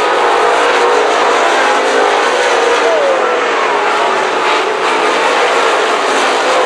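Several dirt late model race cars' V8 engines running around the track together, one engine's pitch falling as a car passes about three seconds in.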